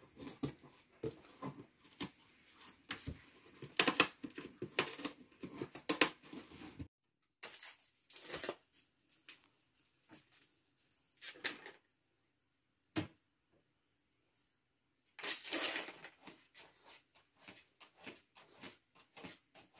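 A puppy chewing and tearing at a cardboard box and paper, making short bursts of crackling and rustling. The bursts come thick for the first seven seconds, then scattered with pauses, and there is another flurry about fifteen seconds in.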